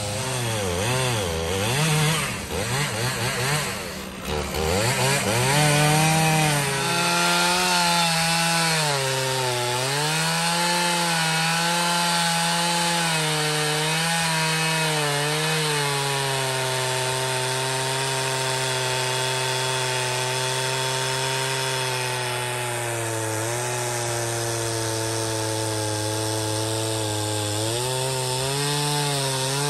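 Gas chainsaw cutting through a large red oak log: the engine revs up and down for the first several seconds, then holds a steady pitch under load as the bar cuts, sagging lower for a few seconds near the end. The chain is one the owner considers due for replacement.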